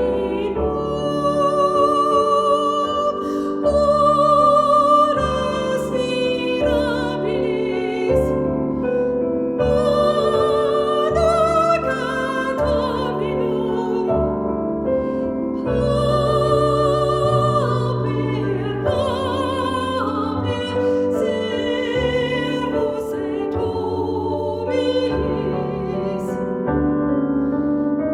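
Choir singing a Christmas song with piano accompaniment, in long held notes with vibrato over a changing piano bass line.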